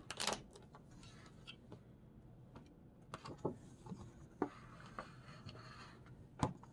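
Light handling noise of paper and pens on a tabletop: the cover of a paper pad being opened and laid back with a soft rustle, and a scatter of small clicks and taps as pens are moved and set down. A louder cluster of taps comes just after the start.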